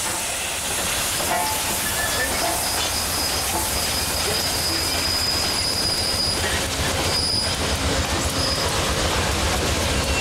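Passenger train passing close at speed: a steady rush of wheels on rail with clicking over the joints, a high steady wheel squeal from about three to eight seconds in, and a low rumble that grows in the second half.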